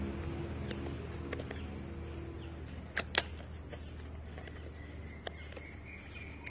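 Paperboard retail box being opened by hand: light scraping and rubbing of the card flaps and tray, with scattered clicks and two sharp snaps close together about three seconds in.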